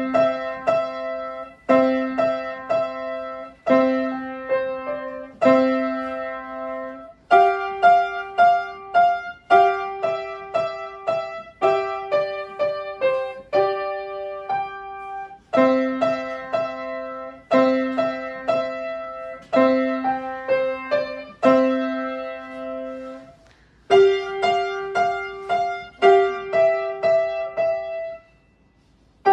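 Piano playing a simple melody in short phrases of quick struck notes, each phrase over a held low note. The playing pauses briefly near the end, then starts again.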